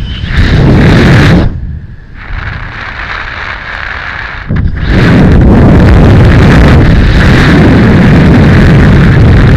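Wind buffeting the microphone of a point-of-view camera during a parachute canopy descent, loud and steady. It eases off for about three seconds shortly after the start, then comes back as strong.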